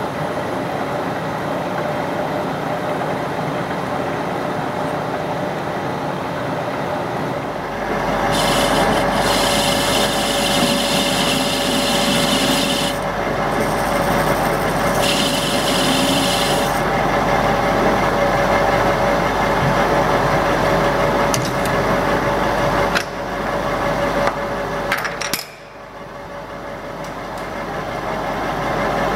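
Metal lathe machining a steel adapter: first a tap held in a drill chuck threads a hole in the end of the part, then after about eight seconds the running lathe gets louder as a lathe tool cuts a groove, with two stretches of hissing cutting noise over a steady hum. Near the end the sound drops sharply and then builds back up.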